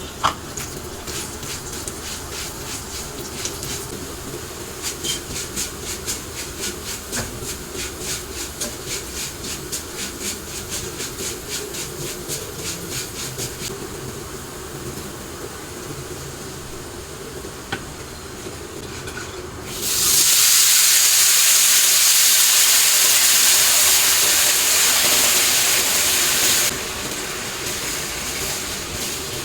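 Kitchen cleaning: rhythmic scrubbing strokes, about two to three a second, for the first half. About twenty seconds in comes a loud, steady hiss lasting about seven seconds that cuts off suddenly.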